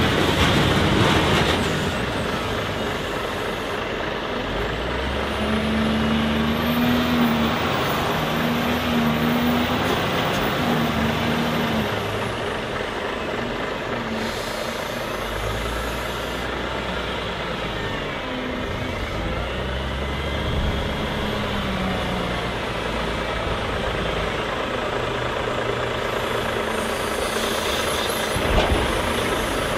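Volvo L60H wheel loader's diesel engine working while it loads snow, its note rising and falling as it revs, with a faint high whine that climbs and falls away in the first half. A short burst of noise comes at the start and again near the end.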